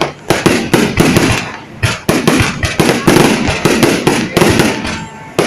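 Aerial fireworks display, shells bursting in rapid, overlapping volleys of bangs that ease off briefly near the end.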